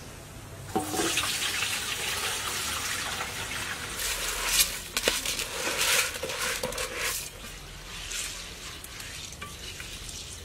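Wet sticky rice grains poured from a bowl into an aluminium pot and then worked by hand: a knock as the bowl meets the pot, then a dense, grainy rustle with sharp little clicks, dying down over the last few seconds.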